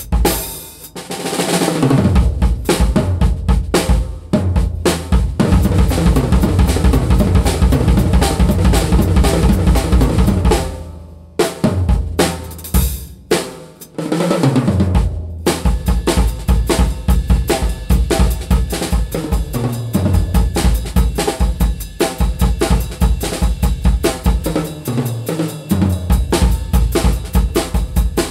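Mapex VX drum kit in medium tuning being played: kick, snare and cymbal grooves with tom fills running down the kit from high to low, one near the start and one about halfway through, with a cymbal crash about a second in.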